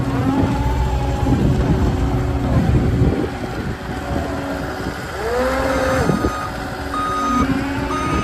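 Cat 279D3 compact track loader's diesel engine running as the machine drives and turns, with a whine that rises and falls in pitch as it moves. Near the end its reversing alarm beeps about once a second.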